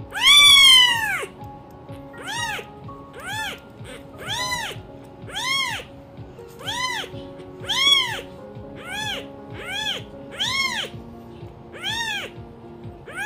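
Newborn kitten mewing over and over, about one short rising-and-falling cry a second; the first cry is the longest and loudest.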